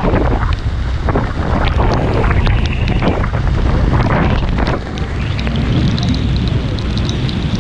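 Strong wind and blowing spray buffeting the microphone in irregular gusts over a steady low rumble, on the open deck of a tour boat in the mist at the foot of Niagara Falls.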